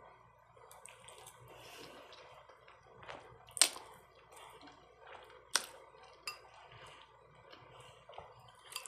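Eating spaghetti: a fork clinking on a plate and soft wet chewing, with two sharp clinks about two seconds apart the loudest.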